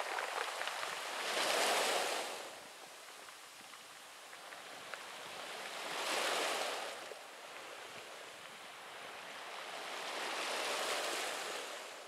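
Small waves breaking on a pebble beach, rising and falling in three surges about four to five seconds apart. Faint clicking of pebbles in the wash near the start.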